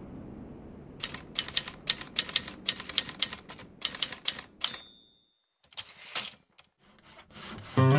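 Typewriter sound effect: a quick run of key clacks, then a single bell ding, a short pause and a few more keystrokes.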